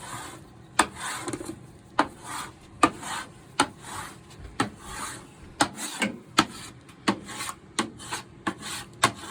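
A wooden board being rubbed hard by hand to work in white paint for a weathered finish: scrubbing back-and-forth strokes with a sharp knock at many of the turns, about one a second at first and quicker in the second half.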